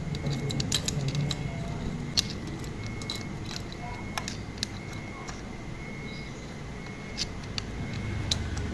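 Scattered light metallic clicks and taps of engine parts and hand tools being handled during scooter engine assembly, over a faint steady high tone.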